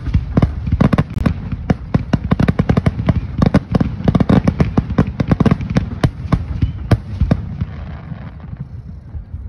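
Aerial fireworks shells bursting in a rapid, dense barrage of bangs and pops, several a second, thinning out near the end.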